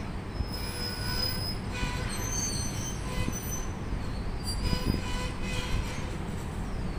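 Passenger train starting slowly behind a VL10 two-section electric locomotive: its wheels squeal in thin high tones that come and go over a steady low rumble.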